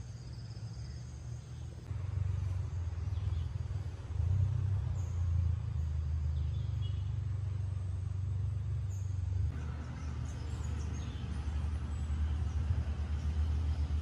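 Outdoor ambience: a low rumble with a few faint, brief high bird chirps. The rumble steps up in level about two and four seconds in.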